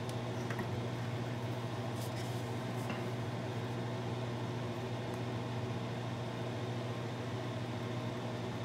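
Fume hood exhaust fan running with a steady low hum. A few faint light clicks of small hand tools come about two, three and five seconds in.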